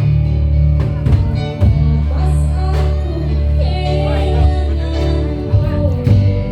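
Live East Javanese patrol (patrolan) music: an ensemble playing with heavy bass, repeated percussion strikes and a wavering melody line over them.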